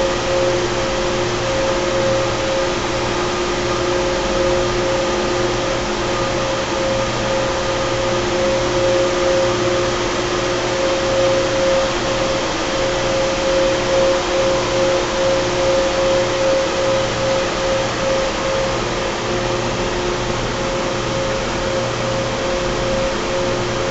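Carrier 30HX screw-compressor chiller running steadily: a constant machine hum with two held tones over a broad hiss, swelling only slightly in loudness.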